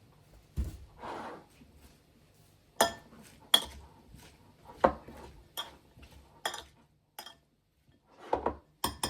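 Kitchen dishes and utensils being handled: a string of irregular clinks and knocks, with a brief scrape about a second in and another near the end.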